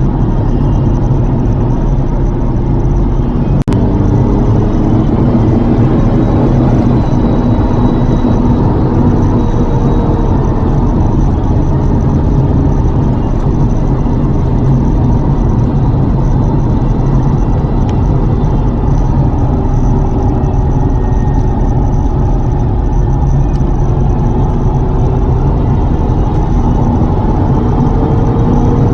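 Lotus Carlton's twin-turbo 3.6-litre straight-six running under way with road noise, at a fairly steady speed, its pitch drifting slowly up and down. A single short click about four seconds in.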